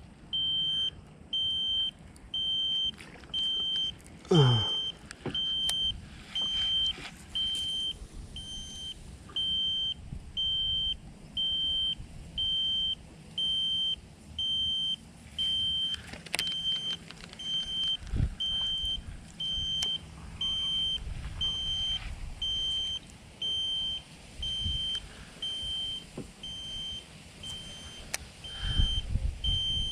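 An electronic unit beeps steadily, one high beep about every second. About four seconds in comes a falling whirr from a baitcasting reel on a cast, and a sharp knock comes a little past halfway.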